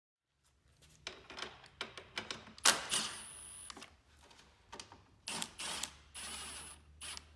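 Clicks and clinks of bolts and parts being handled, with a few short runs of a Milwaukee M18 cordless driver starting the steering post bolts. A sharp clack about two and a half seconds in is the loudest sound.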